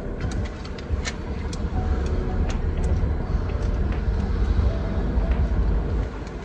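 Low steady vehicle rumble, with a scatter of small sharp clicks and taps from a plastic windscreen phone mount being handled while it is superglued.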